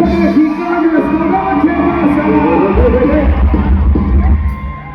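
Norteño band music playing, with melody lines over a strong bass; it drops away in volume near the end.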